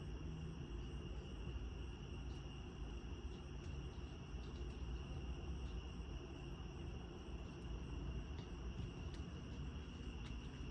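Crickets trilling steadily in a continuous night chorus, over a low, even background rumble.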